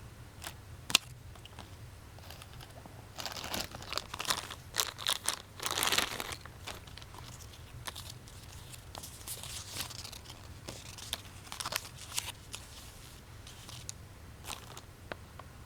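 Plastic packaging crinkling and tearing, with scattered clicks from handling, in uneven bursts that are busiest a few seconds in.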